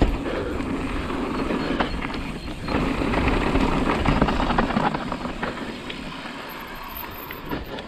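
Downhill mountain bike rolling fast over a dirt and gravel trail: tyre noise, wind on the handlebar-mounted camera and a dense rattle of small clicks from the bike, getting quieter over the last couple of seconds as the bike slows.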